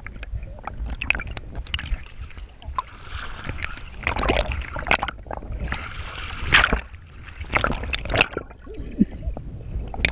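Water splashing and gurgling over a camera mounted on a windsurf board as it dips under the surface and comes back out, in irregular bursts, over a steady low rumble of wind on the microphone.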